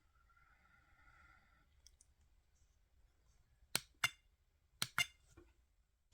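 Four sharp clicks in two quick pairs, the pairs about a second apart, with a faint high whine in the first second or so.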